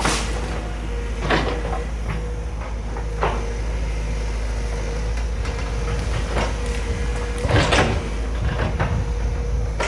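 Sumitomo SH200 hydraulic excavator's diesel engine running steadily under a constant whine, with sharp knocks and clanks every second or two; the loudest cluster comes about three-quarters of the way in.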